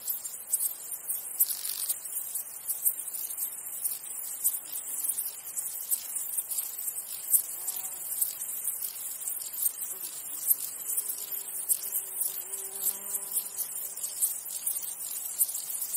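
Insects chirring steadily in a dense, very high-pitched chorus with frequent sharp pulses.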